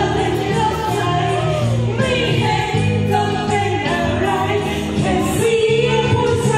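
Singers on handheld microphones singing a song over backing music, amplified through the hall's sound system.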